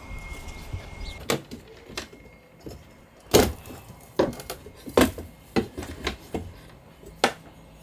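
Irregular sharp knocks and clicks from window-removal work on a boat: a screwdriver prying at the caulked edge of a window frame and plastic window trim being handled, about eight taps spread unevenly. A faint steady high tone sounds briefly at the start.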